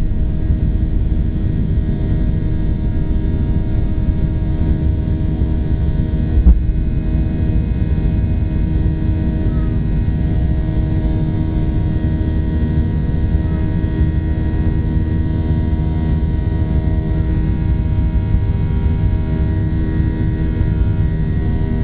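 Boeing 737 cabin noise at takeoff thrust, heard from a window seat over the wing: the CFM56 turbofans make a steady rumble with several steady tones over it as the plane lifts off and climbs. A single thump about six and a half seconds in.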